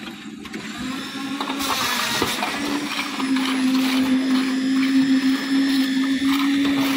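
Concrete mixer machine running with a steady motor hum and churning noise, growing louder about two seconds in.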